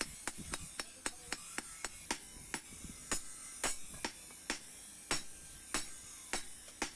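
Hammer striking steel: a run of sharp, unevenly spaced blows, about two to three a second.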